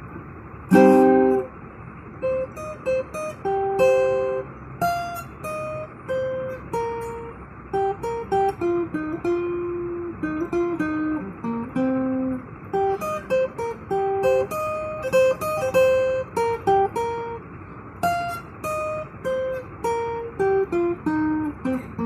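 Acoustic guitar played solo. A strummed chord rings out about a second in, followed by a picked single-note melody with falling runs, and another strummed chord later on.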